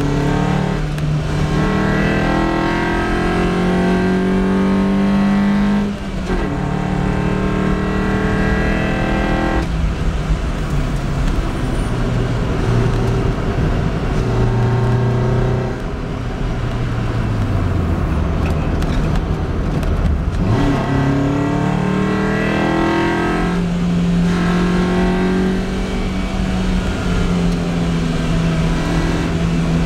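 Lotus Elise's four-cylinder engine heard from inside the car, revs climbing through the gears with a brief dip at a gear change about 6 seconds in. Past the middle the revs fall away for a few seconds, then climb again and hold steady near the end.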